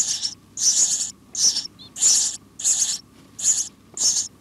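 House sparrow nestlings begging at the nest: short, high, raspy calls repeated evenly about every two-thirds of a second.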